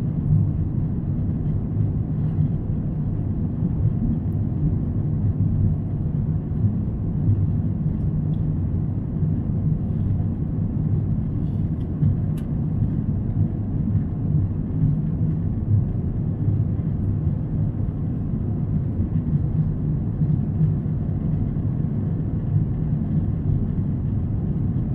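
Steady cabin noise of an airliner in flight, heard inside the cabin: an even, low rumble of engines and rushing air that does not change.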